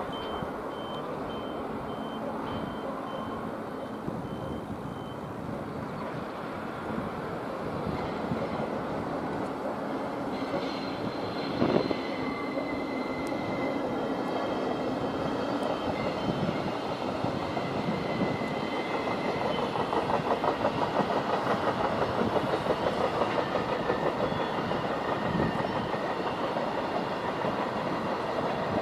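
A line of coupled JR DE10 diesel-hydraulic locomotives rolling slowly past: diesel engine running, with wheels clattering on the rails that grow louder in the last third. There is a single thump about twelve seconds in. A faint repeated beeping sounds during the first five seconds.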